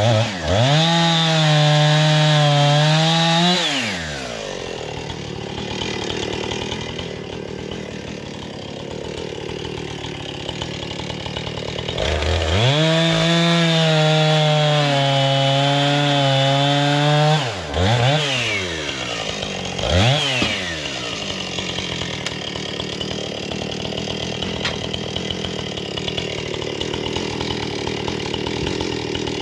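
Two-stroke chainsaw revved to full throttle and held for a few seconds, dropping back to idle, then held at full throttle again, followed by two short throttle blips and a return to idle.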